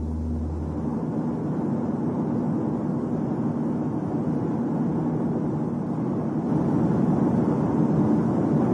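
Steady rumbling vehicle noise, like the road and wind noise heard while driving, growing a little louder about six and a half seconds in. It illustrates noise as one of the three NVH complaints a driver meets.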